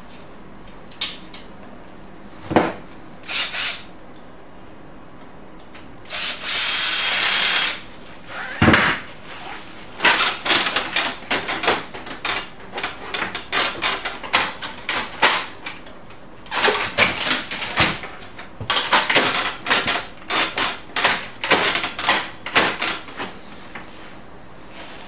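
Plastic and metal parts of an HP LaserJet P3005 laser printer clicking, knocking and rattling as they are handled and fitted into the opened chassis. A scraping slide comes about six seconds in, followed by fast runs of clicks and rattles.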